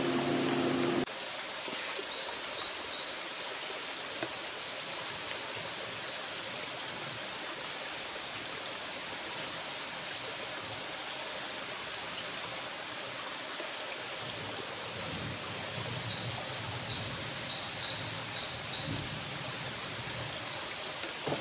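Steady hiss of rainforest ambience, with a run of short, high chirping notes about two seconds in and again about sixteen seconds in. A low steady hum cuts off abruptly about a second in.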